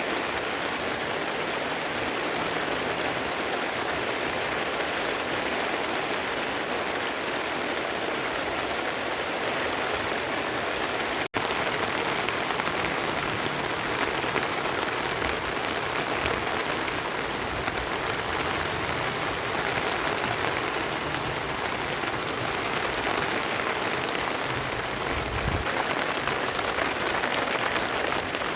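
Steady rain falling. It breaks off for an instant about eleven seconds in.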